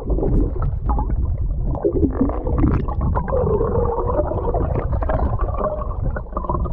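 Muffled underwater sound from a camera held below the sea's surface: a continuous low rumble of water with wavering gurgles and bubbling.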